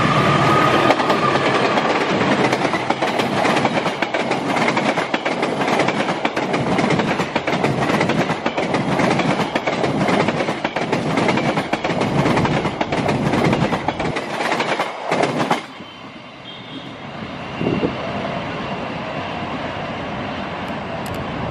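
Diesel-hauled passenger train passing close by, its wheels clattering over the rail joints. The loud passing noise cuts off suddenly about fifteen seconds in, leaving wind on the microphone.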